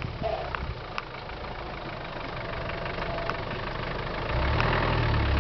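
Land Rover engine running at low revs as the vehicle crawls over a rutted dirt track, growing louder and deeper about four seconds in as it pulls. A few sharp ticks sound over the rumble.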